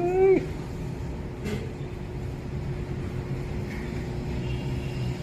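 A Siamese cat meowing once, the call rising in pitch and ending just after the start. A steady low mechanical hum follows, like a vehicle engine, with one faint click about a second and a half in.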